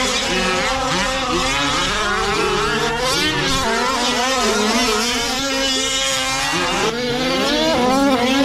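Several Losi 5ive-T 1/5-scale gas RC trucks racing together, their small two-stroke engines revving, the pitches of the different engines rising and falling over one another.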